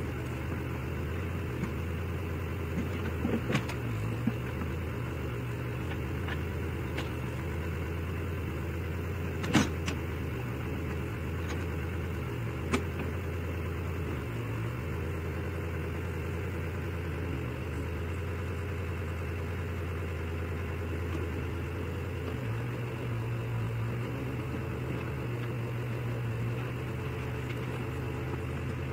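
Ford 420 tractor-loader-backhoe's engine running steadily while it digs a trench, with a few short sharp knocks, the loudest about ten seconds in. The engine note steps up a little in the last quarter.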